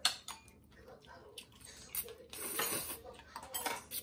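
A person slurping ramyeon noodles in one go (myeonchigi), in a couple of noisy slurps about halfway through and near the end, after a few light clicks at the start.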